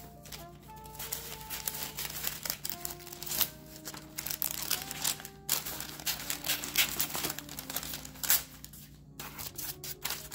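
Scissors cutting through a sheet of parchment paper, with the paper crinkling and rustling as it is handled and trimmed, in many short irregular strokes. Soft background music with held notes plays underneath.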